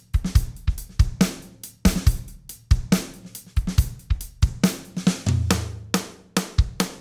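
Drum-kit beat, with kick, snare, hi-hat and cymbal hits in quick succession, and a held low bass note about five seconds in.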